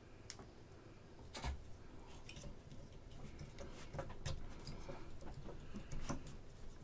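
Faint, irregular light clicks and taps of a resin model kit and small parts being handled by hand, with a few louder taps about a second and a half in and again around four and six seconds.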